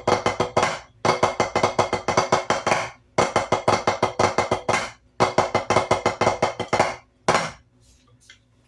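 Drumsticks playing the Swiss Army triplet rudiment with both hands: four fast runs of accented strokes, each lasting about two seconds with a short break between them, then a single stroke near the end.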